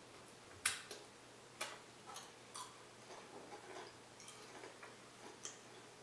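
A Pringles potato crisp crunching as it is bitten and chewed: a sharp crunch about a second in, then a few more, softer crunches that thin out.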